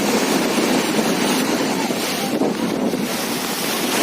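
Steady rushing of wind buffeting the microphone, with no other distinct event.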